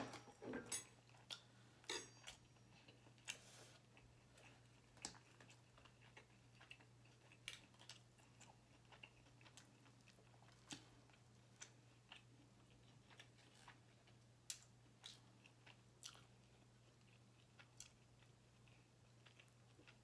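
Faint eating sounds: scattered small clicks of chewing a cheesesteak sub, and a table knife cutting it on the plate, over a steady low hum.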